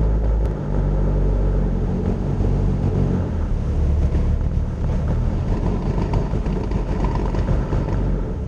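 Cessna 172 Skyhawk's piston engine and propeller running at low taxi power, a steady drone heard inside the cockpit.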